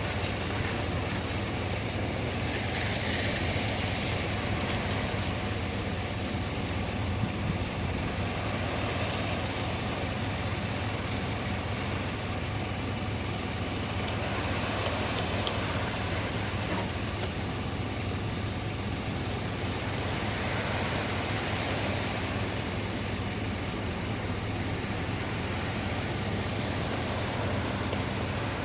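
Sea waves washing ashore, swelling and easing every several seconds over a constant low rumble of wind on the microphone.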